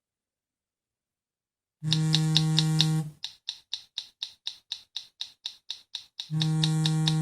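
Nokia 225 4G timer alarm: after a short silence, a low electronic buzz with rapid clicks on top sounds for about a second, gives way to a run of quick ticks about five a second, then the buzz comes back near the end.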